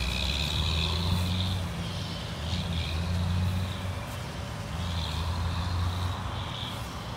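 Pickup truck engine idling: a steady low hum that swells and eases every second or two.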